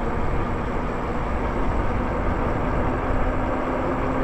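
Wind buffeting the microphone and road noise from a Lyric Graffiti electric bike rolling along a paved street, with a faint steady hum underneath.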